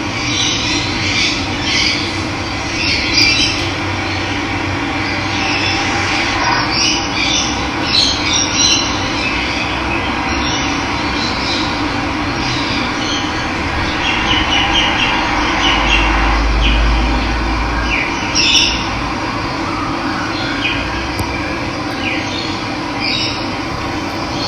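Steady sound of running water with wild birds chirping and calling on and off over it. A brief low rumble comes about two-thirds of the way through.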